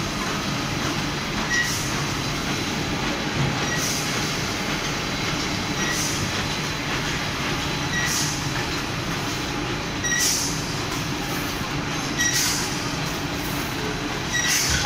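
Automatic double-track packet wrapping machine running: a steady mechanical hum and rattle of the conveyors and drives, with a short hiss about every two seconds as the machine cycles.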